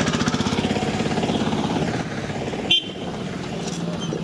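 Busy market street ambience dominated by a small vehicle engine running with a steady, rapid pulse. A brief, sharp, high-pitched beep stands out a little under three seconds in.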